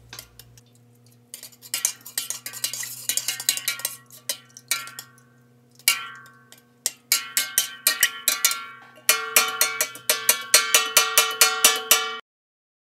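A metal spoon stirring in a stainless steel stockpot, clinking against the pot's sides and bottom so that the pot rings with the same few tones at each hit. The clinks come irregularly at first, then quick and loud, about three a second, from about seven seconds in, and cut off suddenly about a second before the end.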